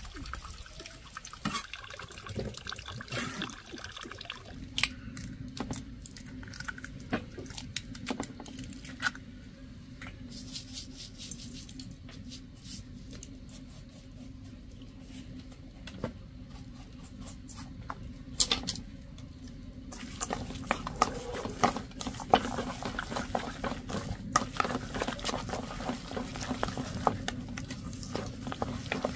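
Water splashing and dripping with scattered clicks and knocks, over a steady low hum that starts about five seconds in.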